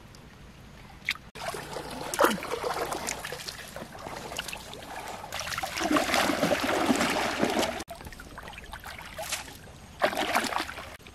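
Shallow river water splashing and sloshing as hands and feet grope through it. The splashing is loudest a little past the middle, stops sharply, and a shorter splash comes near the end.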